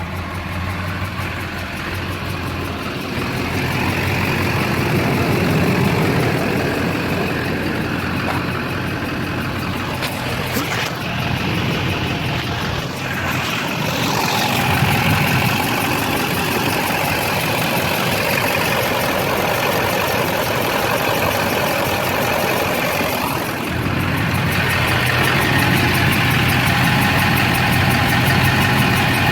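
6.6-litre LB7 Duramax V8 turbo-diesel running with a stuck injector, mid-way through an injector-cleaning attempt. Its note shifts through the middle stretch and settles back into a steady idle near the end.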